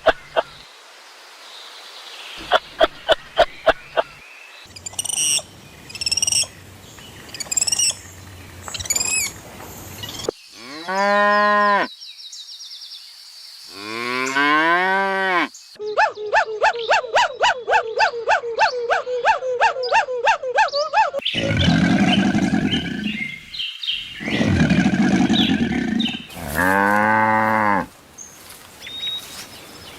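A run of farm animal calls: cattle mooing in several long calls that rise and fall, mixed with short high bird chirps and bursts of clicking.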